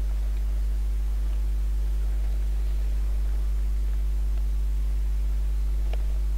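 Steady low electrical hum with a few fainter steady tones above it, unchanged throughout, and a single faint click near the end.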